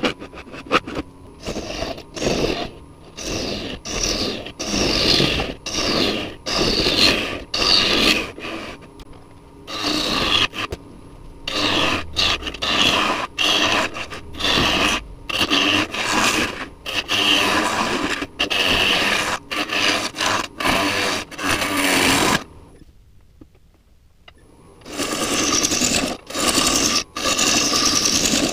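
Turning gouge cutting into a spinning silver maple bowl blank on a wood lathe: a rough scraping rush of shavings coming off in many short, quick bursts. The cutting stops for about two seconds near the end, then starts again.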